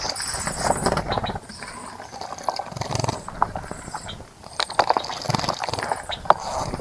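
Small birds bathing in a bird bath: many quick, irregular splashes of water, with high, thin bird chirps repeating over them.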